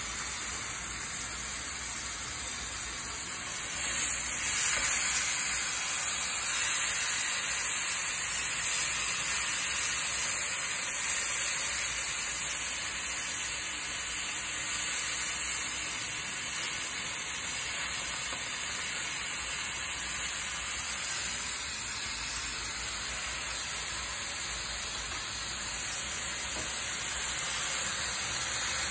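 Marinated pork chops sizzling on an electric indoor grill plate: a steady hiss that grows louder about four seconds in, when a second chop is laid on, then settles.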